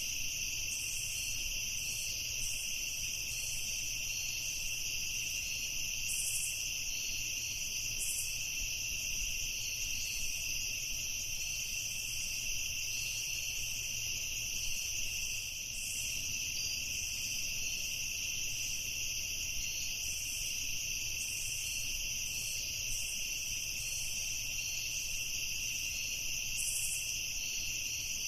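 Night insect chorus: crickets trilling steadily and without a break, with short higher buzzes from other insects every few seconds.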